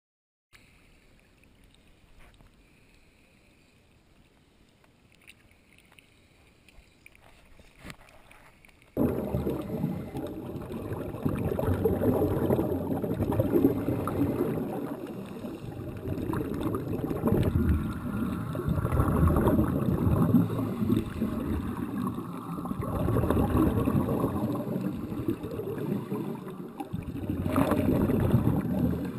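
Muffled underwater rushing and gurgling, swelling and easing every few seconds, as heard through an underwater camera beside scuba divers breathing through regulators, their exhaled bubbles streaming past. It starts suddenly about nine seconds in, after a faint hiss.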